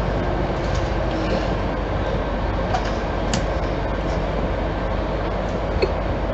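Electric suburban train running through an underground station: a steady rumble and hum with a few light clicks and knocks.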